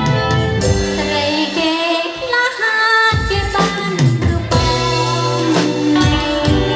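A woman singing into a microphone, backed by a live band with drums, bass and electric guitar. Her held notes waver with vibrato.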